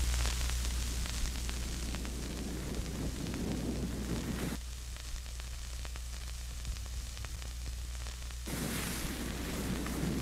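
Analogue video static: a steady hiss and crackle over a low electrical hum. The noise thins about four and a half seconds in and swells again about eight and a half seconds in.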